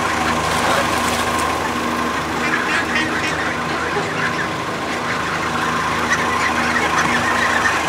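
A motor or engine running steadily, a constant hum with a held tone. Short high peeps of young ducks and geese sound over it now and then.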